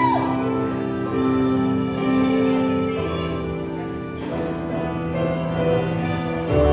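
Live acoustic band playing an instrumental passage: violin, trumpet and keyboard hold long notes together. A louder, fuller chord with more bass comes in near the end.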